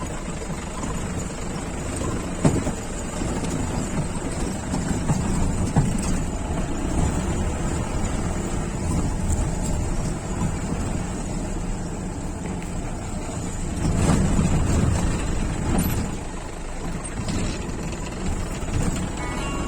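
Jeep driving over a rough off-road track: steady engine and road rumble with a few sharp knocks and rattles from bumps, growing louder for a couple of seconds about two-thirds of the way through.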